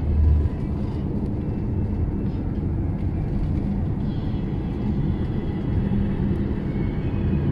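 Car driving along a highway, heard from inside the cabin: a steady low rumble of road and engine noise, with a short low bump right at the start.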